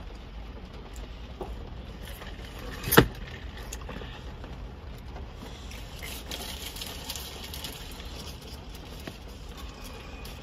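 Steady low rumble inside a car cabin, with one sharp knock about three seconds in and light crinkling of a plastic bag being handled.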